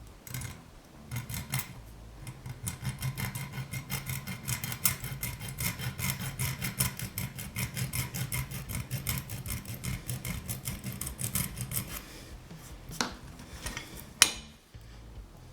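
Hand file rasping on a small copper strip held in a vise, in quick, even strokes for about eleven seconds, then stopping. Two sharp knocks follow near the end.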